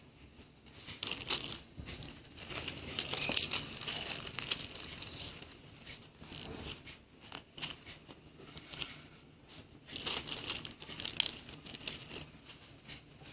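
Irregular crinkling and rustling as squishy toys are handled and squeezed, coming in bursts that are loudest between about one and five seconds in and again around ten seconds in.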